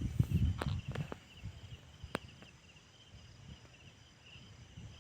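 Dull low thumps during the first second, then a quiet stretch with insects chirping steadily and one sharp click a little after two seconds.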